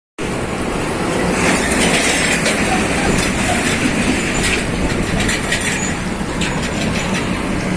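Scania heavy truck running under load, a steady low engine hum with a dense metallic clatter and rattling over it.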